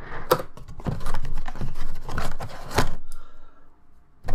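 Clear plastic takeout container lids crackling and a cardboard food box being handled and shut, a quick run of crinkles and clicks for about three seconds that then eases off.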